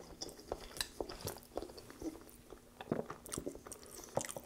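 A person chewing a mouthful of rice: a run of irregular short mouth clicks and crackles, busiest about three seconds in.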